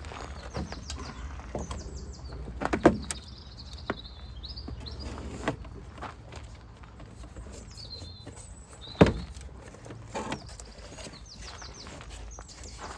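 Scattered knocks and clatters of hands-on work, two sharper ones about three and nine seconds in, over a steady low hum, with short high chirps between.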